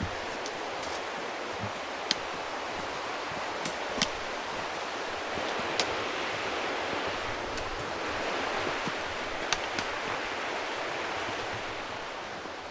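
Steady rushing outdoor noise with a handful of sharp clicks, a second or two apart.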